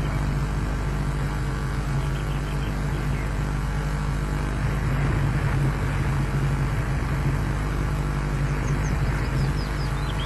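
Steady low drone with an even hiss, with a short run of quick, falling bird chirps about three seconds in and again near the end.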